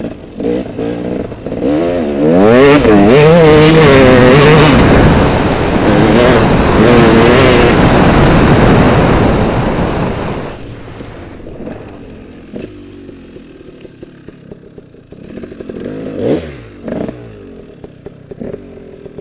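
Dirt bike engine revving up and down under throttle, loud for several seconds, then easing off to a low run about ten seconds in, with a short rising burst of throttle near the end.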